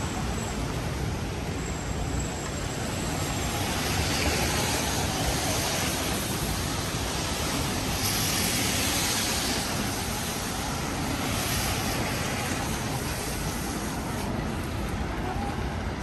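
City traffic on a wet street: a steady hiss of tyres on the wet road, swelling as vehicles pass about four seconds in and again around eight to ten seconds.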